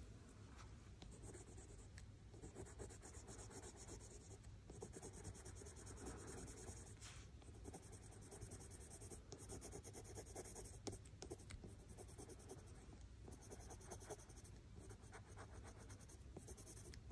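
Faint scratching of a Prismacolor coloured pencil (Chartreuse) on cartridge paper, many short quick shading strokes running on without a break.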